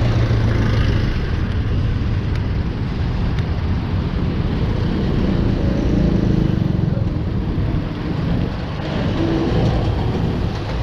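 Road traffic: motor vehicles running with a steady low rumble.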